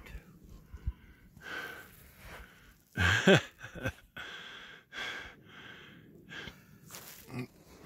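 A worn-out hiker's heavy breathing after climbing steep, deep snow: hard breaths about once a second, with a loud voiced gasp about three seconds in.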